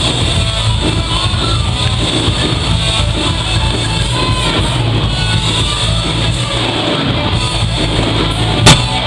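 Rock band playing live: electric guitar and bass over drums, with a loud crash hit near the end.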